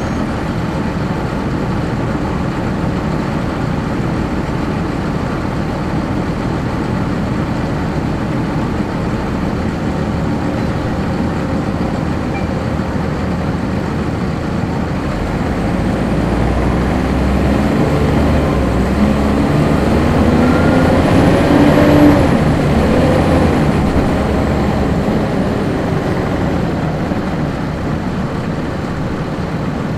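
Rear-mounted Cummins ISC inline-six diesel engine of a 1999 Nova Bus RTS, heard from the back seat of the bus, running with a steady low rumble. From about halfway through it grows louder and its pitch climbs as the bus accelerates, peaking about two-thirds of the way through before easing off.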